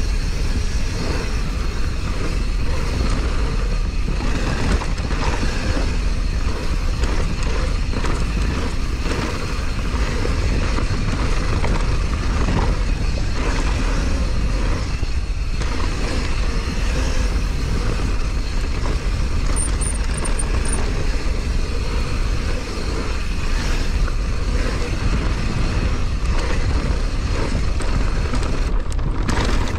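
Mountain bike ridden fast down a downhill trail, heard from a camera on the rider or bike: continuous tyre noise over dirt and rock with frequent rattles and knocks from the chain and frame, over a steady low rumble of wind on the microphone.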